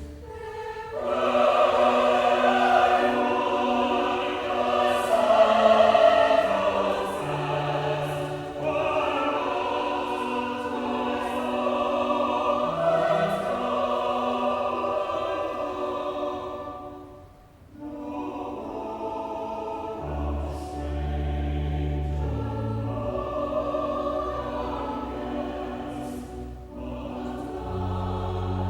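Church choir singing an anthem over sustained low accompanying notes. The music thins out briefly about two-thirds of the way through, then carries on a little softer.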